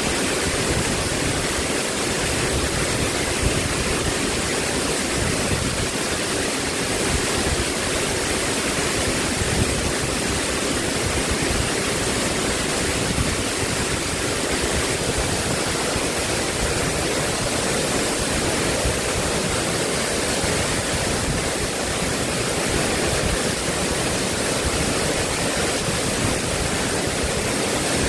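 Water rushing, steady and unbroken.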